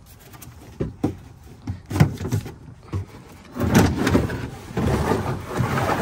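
Tools and equipment being handled and stowed in a service van: a few separate knocks, the sharpest about two seconds in, then a longer run of clattering and rustling from a little past halfway.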